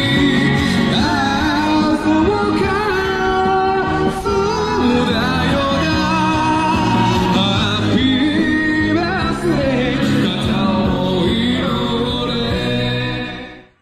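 Live music performance: a singer with instrumental backing, the voice wavering in pitch as it holds notes. The music drops away sharply just before the end.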